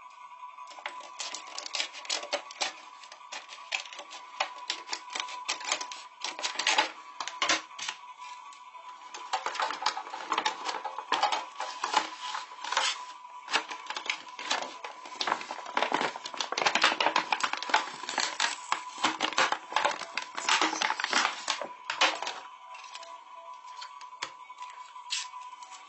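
Clear plastic packaging crinkling and crackling as it is handled and pulled open, in dense irregular crackles that die down a few seconds before the end. A faint steady high tone runs underneath.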